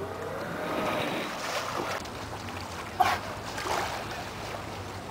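Outboard boat motor running steadily under wind and harbour water noise, with a brief louder sound about three seconds in.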